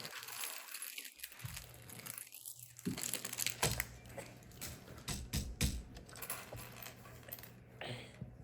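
Plastic Lego pieces being handled, with a cluster of sharp clicks and rattles in the middle as parts are pressed and pulled, over a faint steady low hum.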